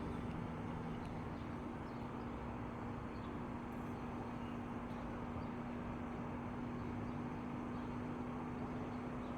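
Steady background noise with a constant low hum and a few faint ticks, like traffic or an engine heard from a distance or from inside a vehicle.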